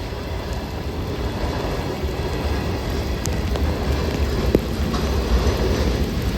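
Great Lakes Central Railroad diesel locomotives rolling past: a steady low rumble with rushing wheel-on-rail noise, growing gradually louder, with a few light clicks.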